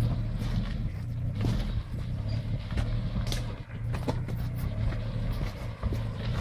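Suzuki SJ-type small 4x4's engine running steadily at low revs as it crawls down a rocky trail, with scattered clicks and knocks.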